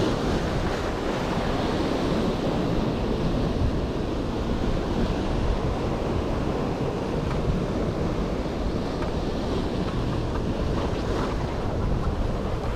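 Ocean surf washing on a beach, with wind buffeting the microphone: a steady rushing noise.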